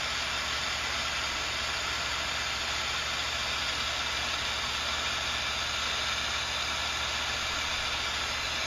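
Steady hiss with a low hum beneath it, unchanging throughout.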